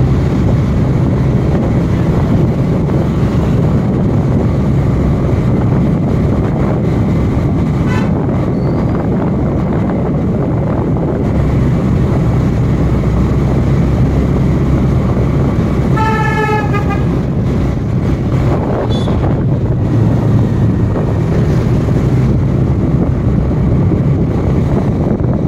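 Motorbike engine running steadily while riding, with wind and road noise. A vehicle horn gives a short toot about two-thirds of the way through, with a fainter brief one earlier.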